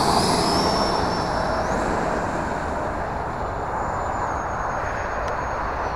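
Horizon Hobby Viper 70 mm electric ducted-fan RC jet on a 6S battery at takeoff throttle. A high fan whine rises in pitch over the first two seconds, then holds steady over a rushing air noise, slowly fading as the jet climbs away.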